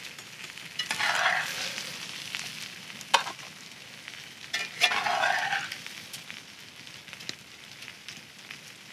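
A spatula scraping and scooping jambalaya out of a hot cast iron skillet onto a plate, in two spells of scraping with a few sharp clicks of utensil on metal, over the faint sizzle of the freshly cooked food.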